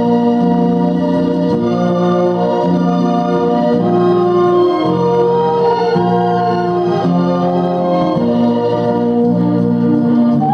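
Background organ music: slow, sustained chords held steady and changing every second or so.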